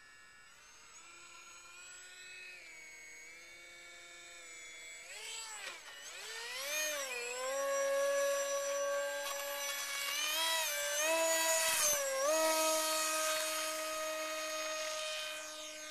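RC seaplane's motor and propeller whining, a high whine like a dental drill. It is throttled up about five to seven seconds in as the plane runs across the water, holds high with a few small pitch shifts, and eases back slightly near the end.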